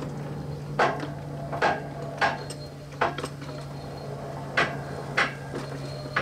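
Sharp metallic clanks and knocks, about seven at uneven intervals, from hands working in the cab and tender of a 7.5-inch gauge live steam locomotive as it is being fired up, over a steady low hum.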